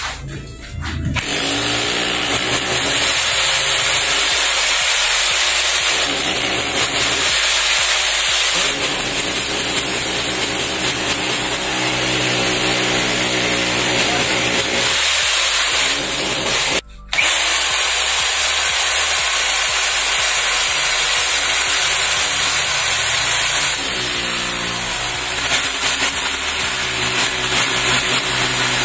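INGCO 1500 W corded rotary hammer drilling a hole into a concrete column with a masonry bit. It runs loud and steady, starting about a second in, stops briefly about halfway through, and starts again.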